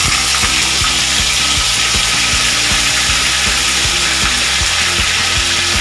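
Onion paste and ginger-garlic paste frying in hot oil in a kadai: a loud, steady, crackling sizzle.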